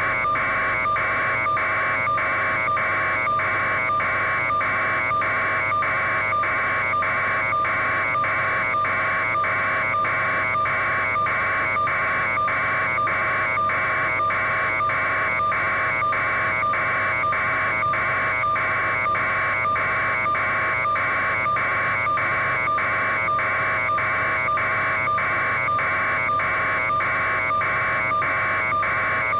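Steady mechanical buzzing drone that pulses about twice a second, over a constant hum.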